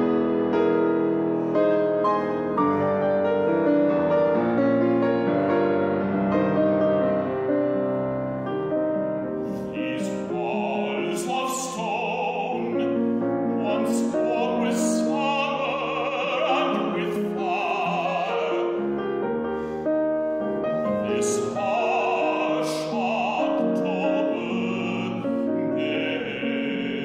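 Piano playing alone, then from about ten seconds in a male operatic voice sings over the piano accompaniment in phrases with wide vibrato.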